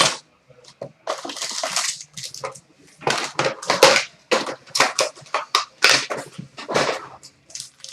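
Trading card packs being torn open and their wrappers crackling and crinkling in hand, in a run of irregular rustling bursts.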